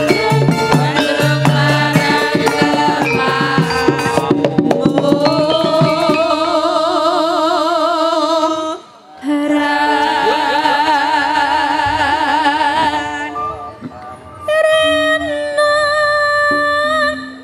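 Javanese women singers (sinden) singing together in unison with a wide vibrato, backed by a gamelan-style ensemble. Quick hand-drum strokes drive the first four seconds or so, then the voices hold long notes, with a short break about nine seconds in. Near the end a single woman sings on her own.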